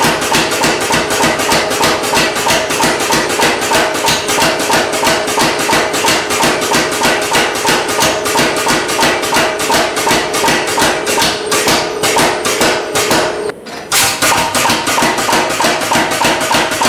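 MZ75 pneumatic power hammer striking a bar of red-hot carbon steel in a rapid, even run of blows. The blows stop for a moment about three-quarters of the way through, then start again.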